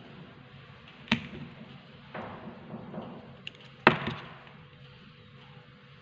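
Metal craft tools, tweezers and thread snips, handled and set down on a tabletop: a sharp click about a second in, brief rustling, then a louder double clack about four seconds in.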